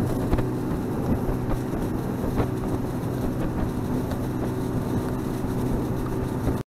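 Boat motor running steadily, with a constant low hum and light water and wind noise; it cuts off abruptly at the very end.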